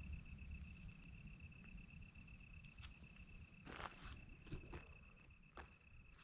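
Faint, steady high-pitched trill of a cricket-type insect, with a few light rustles and clicks, growing fainter toward the end.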